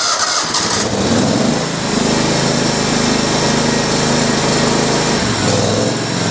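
John Deere 325 lawn tractor engine catching and running up to speed in the first couple of seconds, then running steadily. Its speed drops to a lower, steady running speed near the end.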